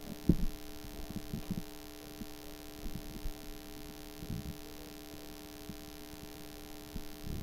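Steady electrical hum made of several steady tones, with a few soft low thumps scattered through.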